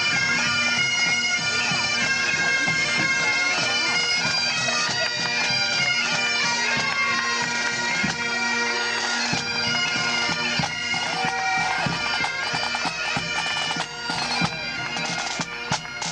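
Bagpipes playing a tune over a steady drone. In the last couple of seconds the tune thins out and sharp percussive strokes take over.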